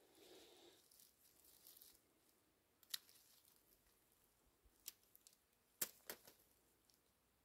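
Soft rustling of hardy kiwi leaves and stems being handled, then a few sharp clicks of hand pruning shears snipping off shoots: one about three seconds in and a cluster near six seconds.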